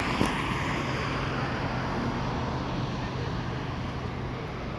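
Steady vehicle noise with a low, even hum and wind on the microphone, and a single short click just after the start.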